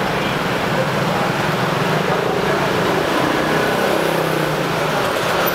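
Steady street traffic noise, with vehicle engines running close by.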